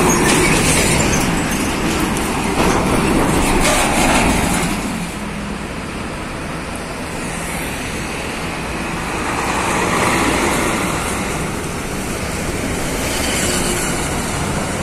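Heavy diesel trucks passing close by on a road: engine and tyre noise swelling and fading as each one goes past.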